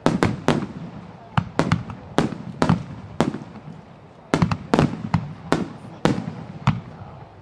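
Aerial firework shells bursting in quick succession: more than a dozen sharp bangs in about seven seconds, each trailing off in a rolling echo, with a short lull a little past the middle.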